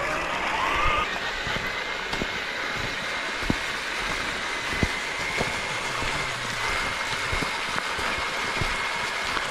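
Radio-controlled scale crawler's electric motor and geartrain whining as it drives, the pitch rising in the first second and then holding steady, with a few sharp knocks as it crawls over the terrain.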